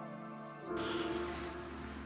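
Background instrumental music with held notes, changing to a new chord about three quarters of a second in.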